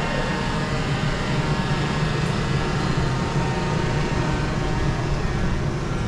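A steady machine hum: a low drone with faint steady tones above it, unchanging throughout.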